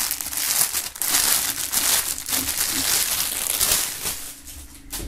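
Clear plastic bag crinkling as a beanie is pulled out of it, fading out about four seconds in.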